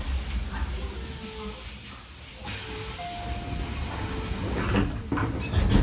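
Tobu 10000 series train's pneumatic passenger doors closing: a sudden hiss of air about halfway through as the door engines act, then the doors slide shut with a thump near the end.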